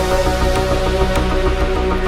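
Background music with sustained synth tones over a steady low bass pulse.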